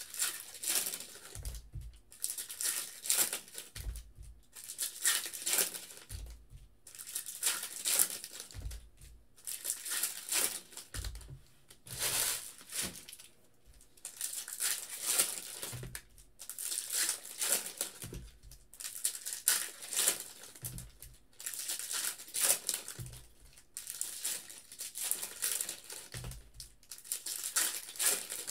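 Foil wrappers of baseball card packs being torn open and crinkled by hand, one pack after another, in repeated bursts every second or two. Each burst comes with a low thump.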